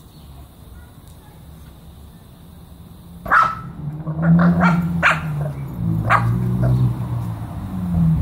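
Pekingese dog barking in short sharp yaps, starting about three seconds in, with a low growl running between the barks.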